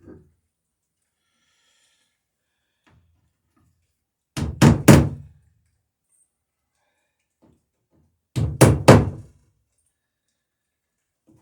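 Hammer blows on the wooden dory's sheer strake, fastening the plank with rivets: two quick groups of about three strikes each, some four seconds apart.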